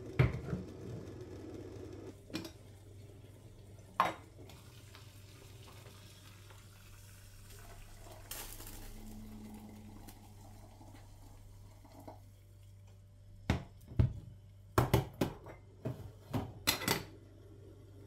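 Metal clinks and knocks of a stainless-steel Turkish double teapot being handled as tea is brewed: a few single knocks, then a quick run of sharp clinks near the end, over a low steady hum.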